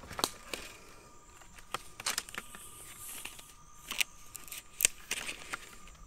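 Footsteps and rustling on dry ground: scattered crackling clicks and short rustles, a few sharper ones near the middle and end, over a faint steady high hum.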